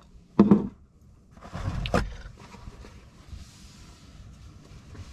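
Handling noise as things are moved about: a brief voice-like grunt, then a louder rumbling knock and scrape, followed by faint rustling.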